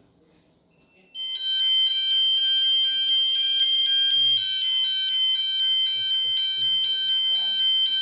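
Fire alarm sounder set off in a test of a new fire alarm control panel: it comes on suddenly about a second in and keeps sounding, a loud electronic tone that steps quickly back and forth between several high pitches.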